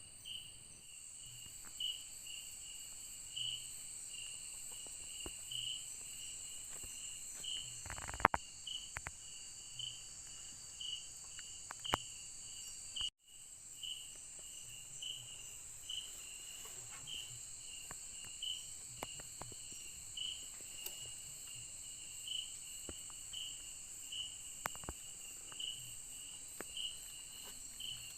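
Night insects of the rainforest: a steady high-pitched buzz with a rhythmic chirp repeating roughly every three-quarters of a second. A few short clicks or knocks fall among them, the loudest about 8 seconds in, and the sound cuts out for an instant about 13 seconds in.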